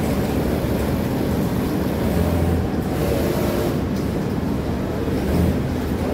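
Steady machine drone of a garment factory floor with industrial sewing machines running, with two brief, louder low stretches, one a couple of seconds in and one near the end.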